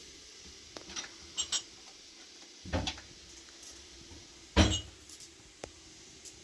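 Kitchenware being handled: a scatter of sharp clinks and knocks of pots, dishes and cutlery set down and moved. The loudest knock comes about four and a half seconds in.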